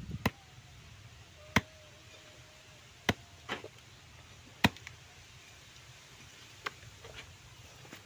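A machete chopping a raw duck into pieces: about five sharp chops, spaced roughly a second and a half apart.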